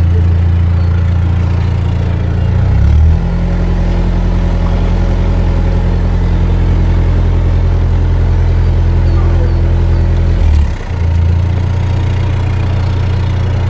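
Narrowboat's diesel engine running steadily at low revs beside the tiller. Its note shifts about three seconds in and dips briefly near ten and a half seconds before settling again.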